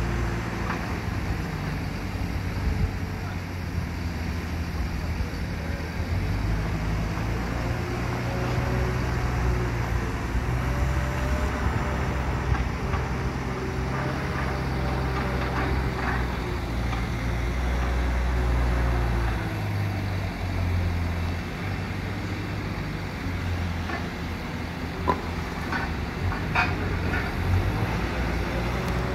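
Diesel engine of a Liebherr wheel loader running as the loader drives and manoeuvres, its low note rising and falling in the middle. A few short knocks come near the end.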